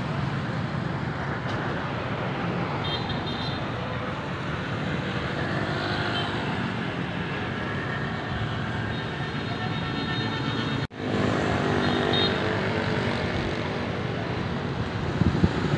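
Steady street traffic: motorbikes and scooters passing on a town road, engine and tyre noise. A passing motorbike's engine drone stands out for a couple of seconds about two-thirds of the way through.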